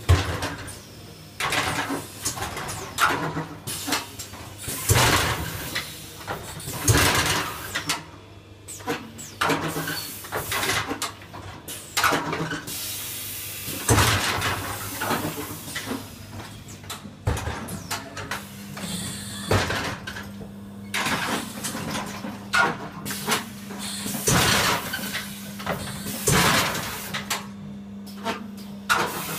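Irregular mechanical clunks and knocks from the installation's moving figures, some sharp and loud, with a steady low hum that comes in about two-thirds of the way through.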